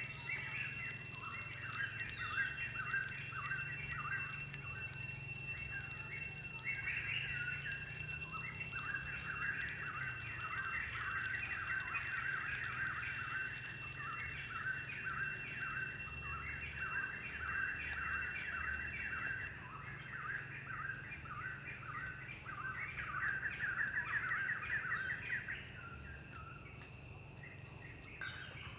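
Birds chirping in quick, repeated runs over a steady high-pitched whine.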